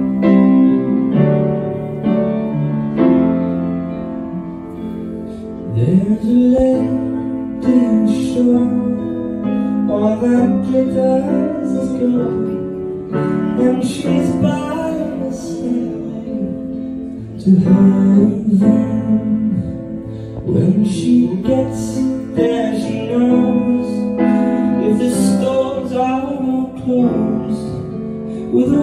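Live band playing a rock song: piano and electric guitar with drums, and a singer taking up the lead vocal about six seconds in.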